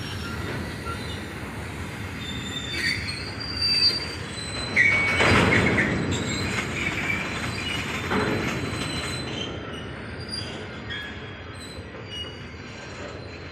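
Freight train of BCNA covered wagons rolling past at low speed, a steady rumble of wheels on rail with brief high-pitched wheel squeals now and then. It is loudest about five seconds in and slowly fades after.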